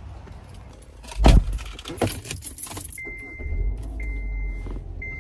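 Inside a car: a door thuds shut about a second in, keys jangle, then the engine starts and runs at idle while a steady electronic warning chime sounds about once a second.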